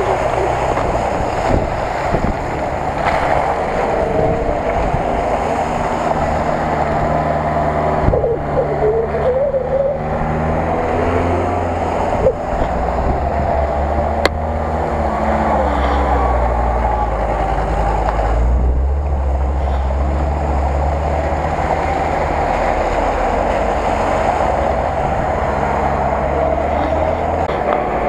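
Engines of 4x4 off-road vehicles running at low speed as they drive one after another along a dirt track. A steady low engine note grows deeper and stronger about halfway through.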